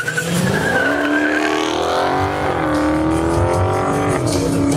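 A drag-racing car launching hard: a tire squeal at the start, then the engine revs climb and fall back twice as it shifts up through the gears.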